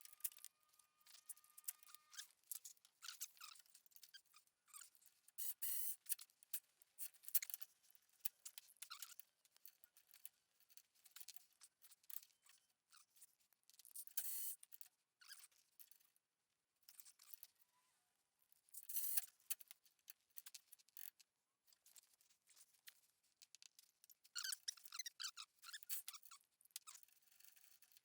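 Intermittent light metallic clicks, scrapes and rattles of small steel brackets and bolts being handled and fitted by hand, in short clusters with quiet gaps between.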